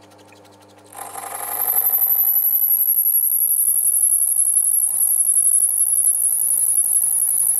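Metal lathe turning a metal ball while a grooving tool cuts a groove into it. About a second in, the tool bites and a loud, steady, high-pitched cutting whine rises over the lathe's low hum.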